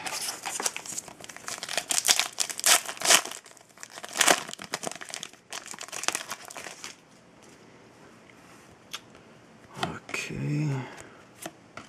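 Foil wrapper of a trading-card pack crinkling and tearing as it is ripped open by hand, an irregular crackle lasting about seven seconds.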